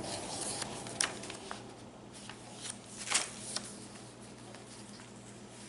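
Paper rustling as the pages and tags of a handmade junk journal are handled and turned, with a few brief crisp rustles, the sharpest about three seconds in.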